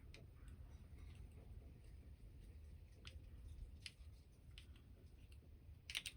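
Near silence with a few faint, light clicks, the clearest near the end: a small screwdriver turning the mixture adjustment screws of a Stihl MS200T carburettor to seat them.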